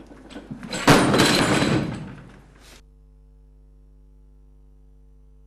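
Heavily loaded barbell set down or dropped to the floor after a deadlift: a sudden heavy crash of the plates about a second in, fading out over a second or so. Then a faint steady hum.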